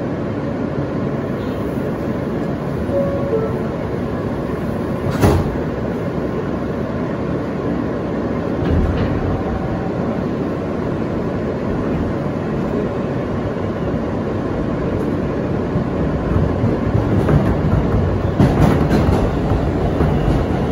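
R160A New York City subway car running, heard from inside: a steady rumble of motors and wheels on the rails, with a sharp clack about five seconds in and a cluster of wheel clicks over rail joints near the end.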